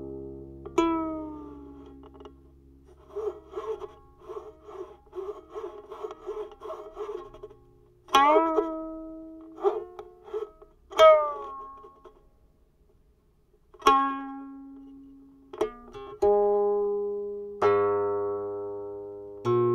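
Guqin, the seven-string Chinese zither, played slowly. Single plucked notes and chords ring and fade, and some slide down in pitch as the left hand moves along the string. A run of quick, softer notes comes from about three to seven seconds in.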